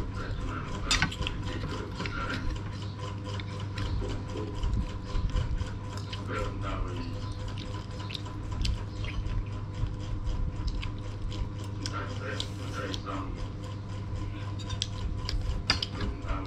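Metal spoons clinking and scraping against plates and a stainless steel bowl while children eat, many small clicks scattered throughout, over a steady low hum.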